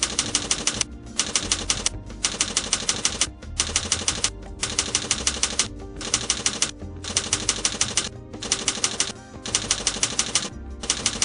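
Split-flap display board clattering: its flaps flip over in rapid clicking bursts of under a second, one about every second.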